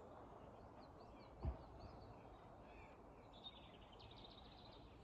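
Faint songbirds chirping outdoors, with short high calls throughout and a quick run of repeated notes near the end. A soft low thump about one and a half seconds in.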